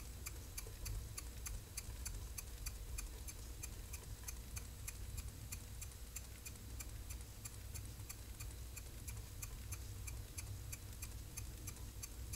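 H. E. Boucher S62 two-cylinder marine steam engine ticking over slowly on about a pound and a half of pressure: an even, light clicking about three times a second.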